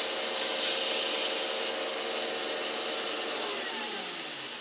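Wood lathe running with a steady hiss of the spinning wood being worked. About three and a half seconds in, the motor winds down and its pitch falls.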